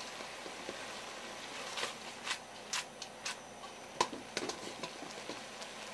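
Shelled asari clams simmering in a thick, nearly reduced soy sauce, sugar and sake glaze. A steady hiss runs throughout, with a run of sharp bubble pops and crackles between about two and five seconds in, the loudest about four seconds in.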